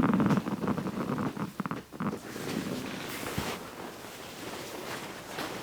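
A person's low, creaky groan under the strain of an assisted stretch, loudest at the start and fading out within about two seconds. It is followed by soft rustling of bodies and clothing on the treatment table.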